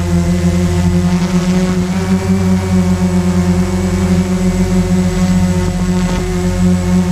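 Walkera QR X350 quadcopter's electric motors and propellers running with a steady buzzing drone, heard from the camera mounted on the drone in flight.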